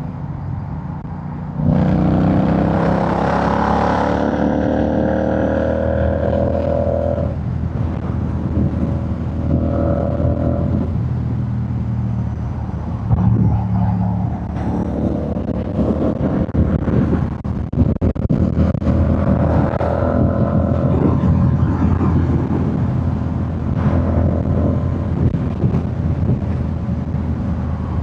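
Royal Enfield Shotgun 650's 648 cc parallel-twin engine and exhaust running. The revs jump about two seconds in and climb steadily for several seconds, then rise and fall for the rest of the time.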